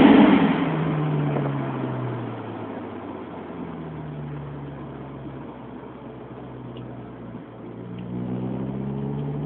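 Honda S2000's four-cylinder engine, breathing through a K&N air filter and a home-built exhaust: the note falls away as the revs drop off after a hard pull, runs low and steady, then climbs again about eight seconds in as the car accelerates.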